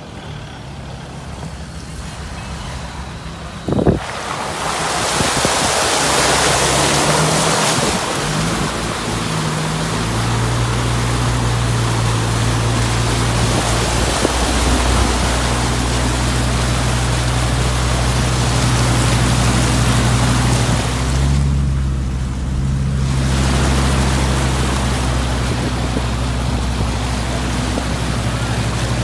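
Land Rover Discovery Td5's five-cylinder turbodiesel engine droning steadily as the vehicle wades through deep floodwater, its bow wave rushing and splashing along the body. A single sharp knock comes about four seconds in, after which the water noise swells. The rush dips briefly about three-quarters of the way through, leaving the engine drone on its own.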